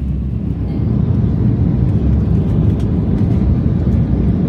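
Steady low rumble of a moving vehicle heard from inside the cabin, growing louder about a second in.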